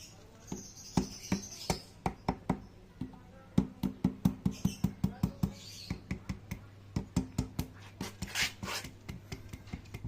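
Hand tools working on a small engine being stripped down: a string of sharp metallic clicks and taps, in quick even runs of about four to five a second, with a short hiss about eight seconds in.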